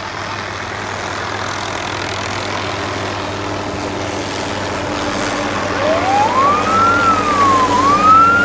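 Small helicopter flying in low, its rotor and engine noise growing steadily louder. About six seconds in a siren starts up: it wails upward, dips and climbs again to a held high note.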